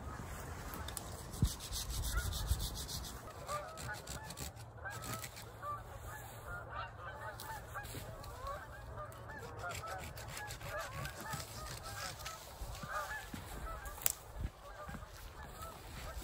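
A flock of geese honking, many overlapping calls at a distance. Over it, cedar branches rustle, with two sharp snaps, one near the start and one near the end, as branches are cut.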